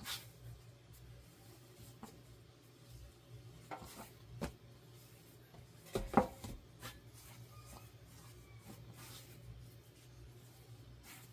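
Hands kneading bread dough on a floured silicone mat: soft rubbing and pressing with a few light knocks. About six seconds in, the metal loaf pan knocks once as it is picked up and moved. A faint low hum runs underneath.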